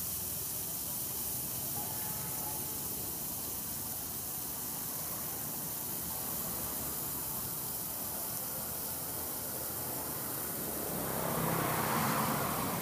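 Steady hissing sizzle of fried noodles and bean sprouts on a large hot flat wok, with a louder rushing swell near the end.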